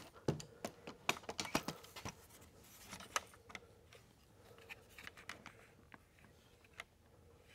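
Handling noise of a camera being moved and repositioned: light clicks and scratches, coming quickly for the first three seconds or so, then sparser and fainter.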